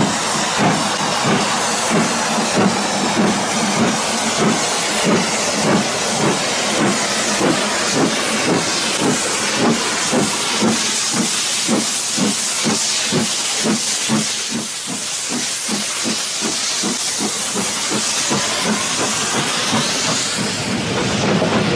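LMS Stanier 'Black Five' 4-6-0 steam locomotive working past at low speed. Its exhaust chuffs in a regular beat of about two a second over a loud hiss of steam from around the cylinders. After about fifteen seconds the chuffing fades as the engine draws past, leaving the hiss and the rolling of the train.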